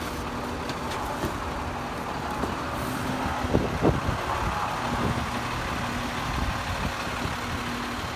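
Sterling LT7500 rear-loader garbage truck's diesel engine running steadily close by, with a few sharp knocks about three and a half to four seconds in.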